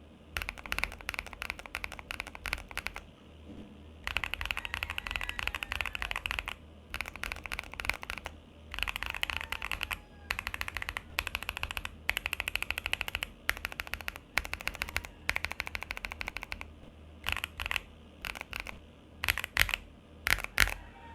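Typing on a mechanical keyboard fitted with Akko V3 Cream Blue tactile switches: bursts of rapid keystrokes broken by short pauses, thinning to a few separate key presses near the end.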